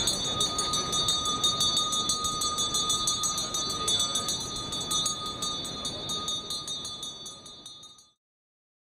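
A small hand bell rung continuously, its clapper striking rapidly so the ringing tones hold steady, over the murmur of a street crowd; the sound fades out about eight seconds in.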